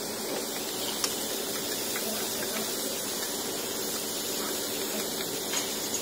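Meat sizzling on a tabletop barbecue grill: a steady hiss with a couple of faint crackles.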